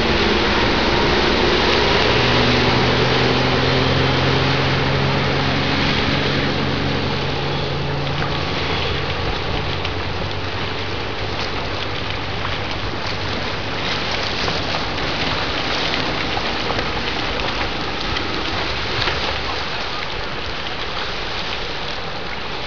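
The 165 hp MerCruiser straight-six inboard of a 1971 Silverline tri-hull boat running under way. Its note shifts a little in pitch, then fades out about ten seconds in as the boat pulls away, leaving a steady rushing noise of wind and water.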